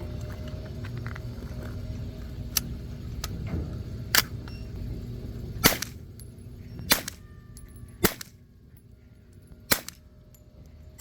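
A semi-automatic firearm shooting a slow string of about seven shots, one every second or so. It is firing a magazine of mixed aluminum- and brass-cased rounds and cycles each one without a stoppage.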